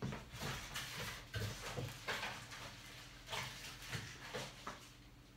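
Hands handling laptop parts: irregular rustling and light knocks and clicks, about a dozen scattered over a few seconds.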